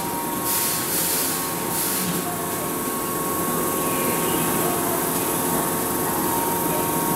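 Keihan 8000 series train standing at an underground platform, its equipment giving a steady hum with a thin whine, and three short hisses in the first two seconds.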